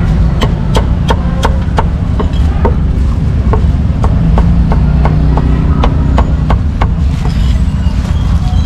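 Cleaver chopping barbecued pork on a thick wooden chopping board: a quick run of short knocks, about two or three a second, that thin out near the end. A steady low rumble runs underneath.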